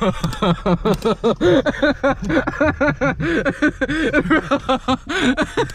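Hearty laughter in quick repeated bursts, about four or five a second, over the steady low rumble of a car's cabin on the move.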